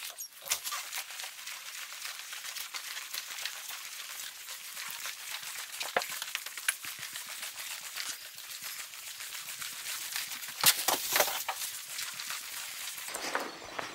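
Footsteps of someone walking quickly along a carpeted corridor, mixed with rustling and small clicks of clothing and handling noise. A louder cluster of rustles and clicks comes about ten and a half seconds in.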